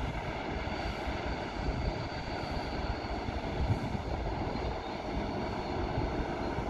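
Freight train hauled by electric locomotives approaching at a distance: a steady rumble with faint steady tones and a faint high whine setting in about a second and a half in, with wind buffeting the microphone.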